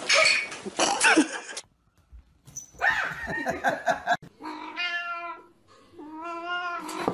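A cat hissing in a short scuffle, then after a pause two long, drawn-out meows.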